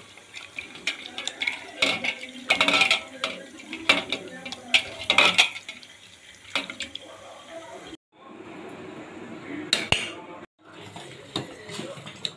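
A tumbler clinking and knocking against a steel pot as water is poured and sloshed into tomato mixture, with sharp clinks mostly in the first half. The sound cuts out briefly twice later on.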